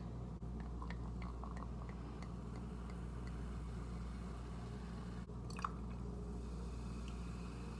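Sparkling wine poured into a stemmed wine glass, fizzing faintly with many tiny pops, then orange juice poured in on top to make a mimosa. A short knock comes a little after five seconds.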